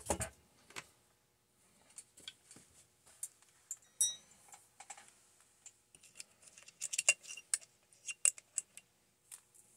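Light clicks, taps and knocks of a plastic chainsaw body and its parts being handled, turned over and set down on a workbench, with a quick run of clicks late on.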